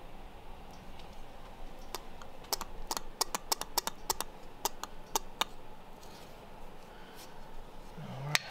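Socket ratchet clicking in a quick, irregular run of sharp clicks as it turns a bolt on the small engine's air cleaner housing, then one louder knock near the end.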